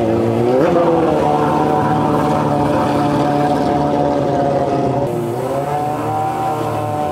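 Motorcycle engine held at high revs. Its pitch climbs about half a second in, drops briefly about five seconds in, then rises again.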